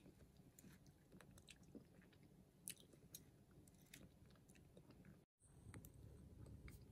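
Faint chewing and soft scattered clicks of a metal spoon scooping soft dragon fruit flesh from its half-shell, at a very low level close to silence.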